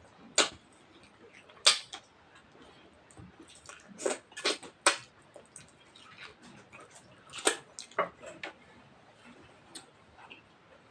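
Close-up eating sounds: irregular sharp smacks and clicks of a mouth chewing rice and mutton curry, about a dozen in all, clustered around a second in, four to five seconds in and seven to eight seconds in.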